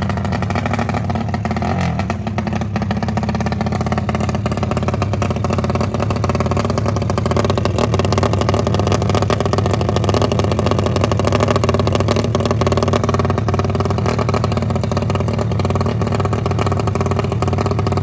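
Rusi TC motorcycle with its engine enlarged to 200cc, its air-cooled single-cylinder engine idling steadily through an aftermarket AUN exhaust, freshly kick-started.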